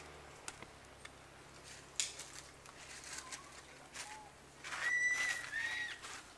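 A short, high whistled call about five seconds in, followed by a couple of quick curving chirps, with a few faint taps and clicks before it.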